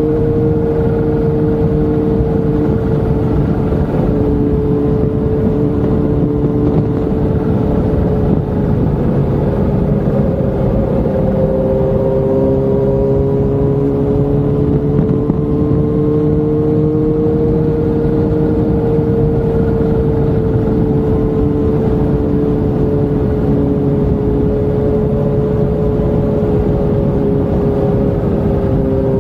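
Motorcycle engine running at a steady cruise, its pitch drifting slowly up and down, under heavy wind and road noise on the bike-mounted microphone.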